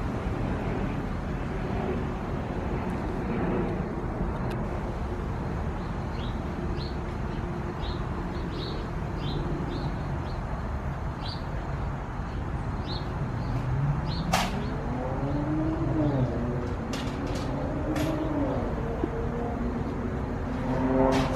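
Steady low traffic rumble with small birds chirping in short high notes. About two-thirds of the way through, a vehicle's engine rises and then falls in pitch as it passes, with a few sharp clicks.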